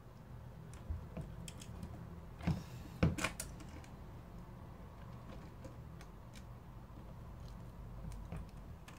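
Scattered light clicks and scratches of a thin cutting wire being worked between a phone's digitizer glass and LCD, with two sharper ticks about two and a half and three seconds in, over a faint low hum.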